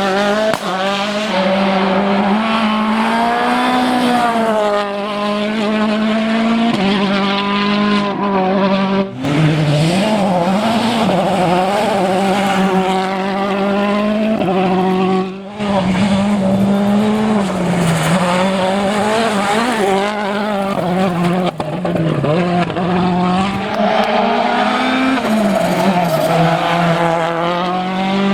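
Citroën DS3 WRC rally car's 1.6-litre turbocharged four-cylinder engine driven hard on a stage, its pitch rising and falling with throttle and gear changes. The sound breaks off briefly twice, about nine and fifteen seconds in.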